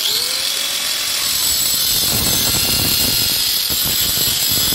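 Handheld angle grinder switched on, starting up sharply and running at full speed with a loud high whine. From about two seconds in its cutting disc bites into a white PVC water pipe, adding a rough grinding rasp.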